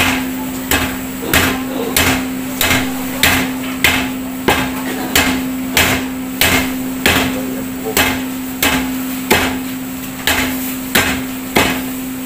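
Meat cleaver chopping pork leg on a wooden chopping block, with steady strokes about every 0.6 seconds, cutting it into pieces for boiling. A steady low hum runs underneath.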